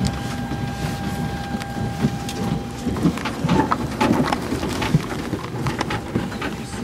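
Cabin noise of a parked Tu-154B-2 airliner: a steady low rumble with a thin whine that cuts off about three seconds in. It is followed by irregular knocks and rustling close to the microphone.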